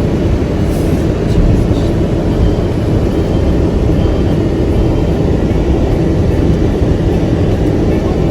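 Steady, loud low rumbling noise with no distinct events.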